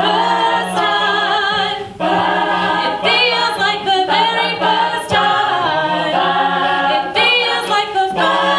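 Mixed group of voices singing a cappella, a lead voice at the microphone over backing voices, with a steady low held note beneath them that drops out briefly a few times.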